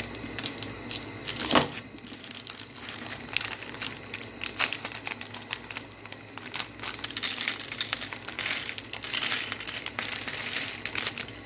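Small plastic Lego pieces clicking and clattering as they are handled and sorted, with a louder knock about a second and a half in.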